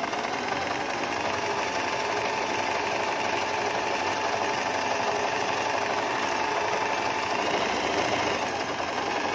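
Singer 8280 electric sewing machine running steadily at an even speed, stitching a narrow hem along fabric, with a constant motor whine under the needle's fast chatter.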